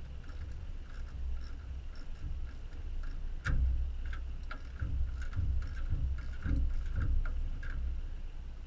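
Quarter-inch-drive ratchet clicking in short repeated strokes as a hose clamp on the turbo boot is tightened, with a few dull knocks of handling.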